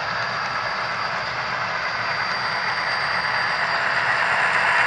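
HO-scale model train rolling along the track: a steady rushing rumble of wheels and motor with a thin high whine, growing louder as the locomotive nears.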